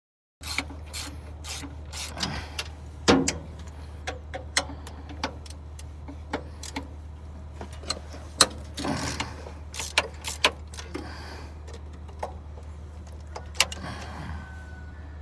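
Hand tools clanking and clicking on metal at irregular intervals while a wood chipper's starter is being unbolted, over a steady low hum.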